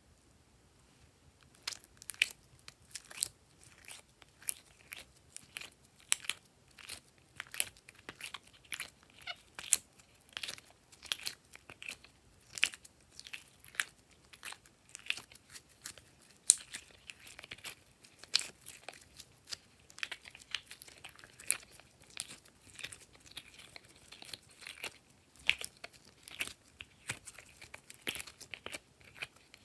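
Glossy slime being kneaded and pressed by hand, making a run of sharp pops and crackles, one or two a second, starting about a second and a half in.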